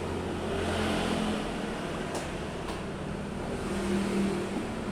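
A steady low mechanical hum over background noise, with two faint clicks a little past two seconds in.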